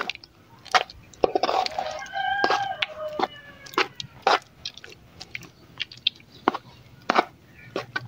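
A knife clicking and scraping against the inside of a steel pot as it chops soft honeycomb into small pieces in runny honey, in irregular sharp taps. About a second and a half in, a drawn-out bird call sounds in the background, falling slightly in pitch toward its end.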